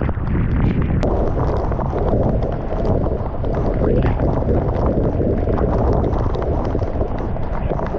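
Heavy thunderstorm rain pelting a moving car, mixed with wind and road noise, a dense steady crackle throughout. A single sharp click sounds about a second in.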